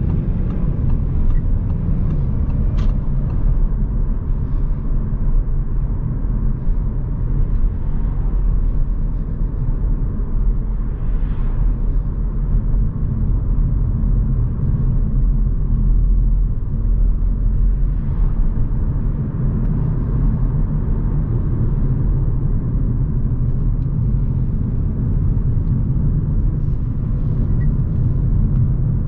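Steady low drone and road rumble of a 2021 Audi A4 35 TDI being driven, heard inside the cabin from its 2.0-litre four-cylinder turbodiesel and tyres. One brief click comes about three seconds in.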